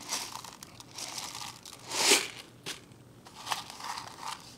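Crinkling, rustling handling noises with a few light clicks as Osmocote fertilizer granules are shaken out of their plastic bottle, with one louder rustle about two seconds in.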